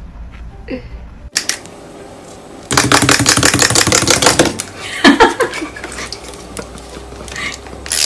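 A rapid run of loud clicks, like a rattle, lasting about two seconds, then a short call whose pitch bends up and down.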